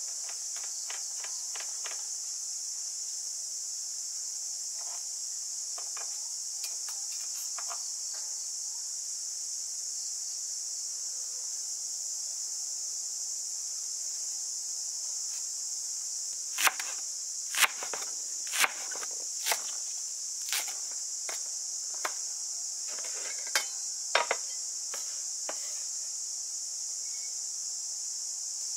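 Kitchen knife chopping green onions on a wooden cutting board: faint quick taps at first, then louder, sharper knocks about once a second in the second half. A steady high-pitched insect drone runs underneath.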